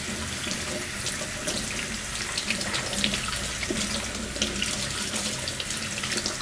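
Kitchen tap running in a steady stream into a stainless steel sink, splashing over a bunch of fresh herbs that are rinsed and turned under it by hand, with small irregular splashes throughout.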